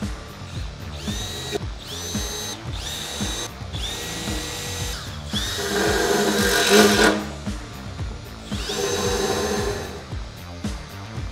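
Electric drill run in about six short bursts, its motor whining up to speed at the start of each. The longest and loudest burst comes around the middle, and background music with a steady beat plays underneath.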